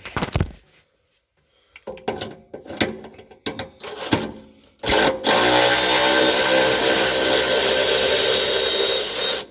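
A few knocks and clatters of metal tools, then a power tool runs steadily for about four and a half seconds, starting about five seconds in.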